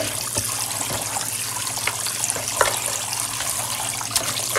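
Cold water running steadily from a kitchen tap into a container of country ribs as they are rinsed, with a few small splashes.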